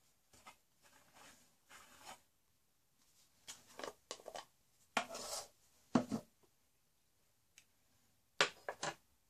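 Small objects being handled below the frame, making a run of short scrapes and rubs with a few sharp knocks, the loudest near the middle and just before the end.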